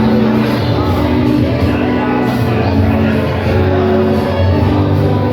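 Instrumental accompaniment to a song medley, with sustained chords over a steady bass line.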